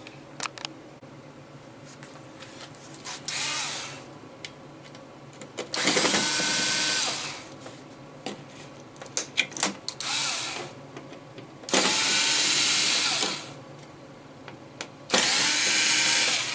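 Electric screwdriver whirring in about five short runs of a second or so each, spinning up and winding down, as it backs out the screws holding a TV's power supply board. Small clicks of handling come between the runs.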